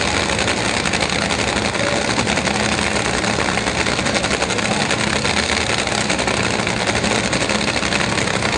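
A drag-race car's engine idling loudly and steadily, with a rapid, even firing pulse.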